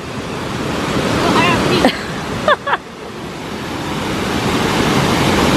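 Rushing water of a small river waterfall, a steady rush that grows louder over the second half, with brief voices calling out about two seconds in.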